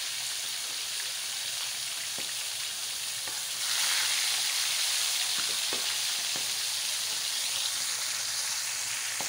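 Milkfish steaks sizzling in hot frying oil: a steady hiss with scattered small pops and crackles, growing louder about a third of the way in.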